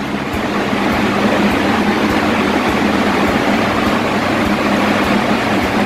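Itaipu hydroelectric turbine-generator unit running, its massive vertical shaft spinning: a loud, steady machine rush with a steady low hum underneath.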